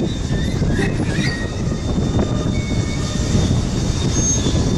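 Freight train wagons rolling past close by: a steady, heavy low rumble of steel wheels on rail, with short high wheel squeals now and then.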